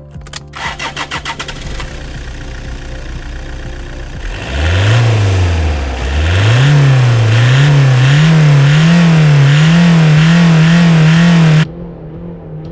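Toyota RAV4 II 2.0 16V diesel engine turning over with regular pulses, then running steadily. It is then revved up and down in repeated sweeps and is loudest there. It cuts off suddenly about a second before the end, giving way to a quieter engine sound.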